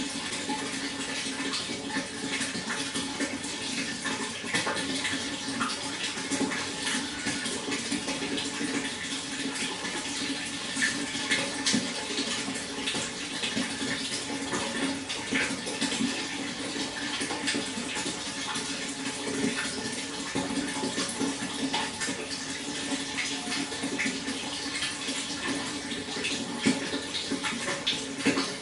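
Water flowing and splashing steadily, with a constant rush dotted with small irregular drips and splashes.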